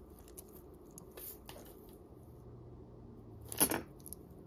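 Pieces of costume jewelry clicking and clinking lightly as they are handled, with one sharper clink about three and a half seconds in.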